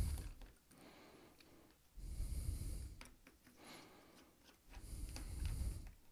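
Breathing close to the microphone, three soft breaths about two and a half seconds apart. Between them come a few faint clicks from a screwdriver and the plastic case as screws are undone.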